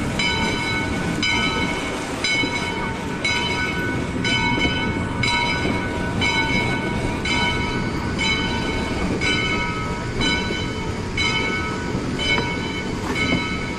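A steam locomotive's bell rings steadily, about once a second, over the low rumble and rattle of the narrow-gauge train rolling slowly along.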